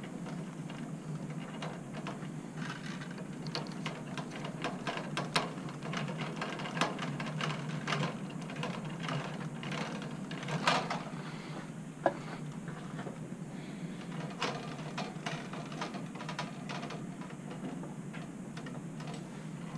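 Scattered small clicks and rustles of hands handling and twisting fluorescent-ballast wires and wire connectors inside an opened ceiling light fixture, with a few sharper clicks, over a steady low hum.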